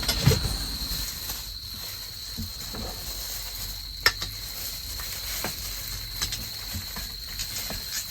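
Crickets chirping in a steady, unbroken high trill, with a few scattered sharp clicks and knocks, the sharpest about four seconds in.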